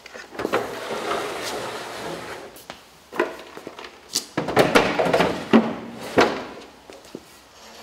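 Slide-out camper-trailer kitchen being pushed back into its compartment: a scraping slide for the first few seconds, then a string of clunks and knocks from about four seconds in as it closes up.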